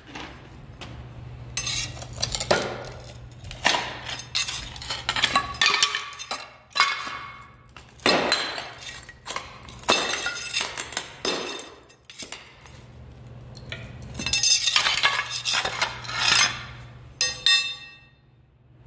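Ceramic floor tiles being scraped and pried off a concrete slab with a long-handled hand scraper: irregular scraping strokes, with tile pieces cracking, clinking and clattering against each other.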